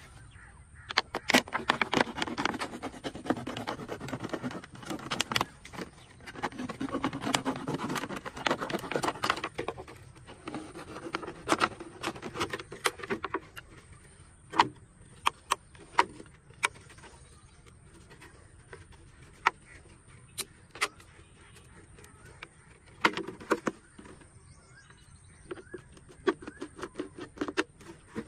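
Thin clear plastic jar crinkling and crackling as it is cut open with a knife and bent by hand: a dense run of crackling for the first dozen seconds or so, then scattered clicks and taps, with another short spell of crackling near the end.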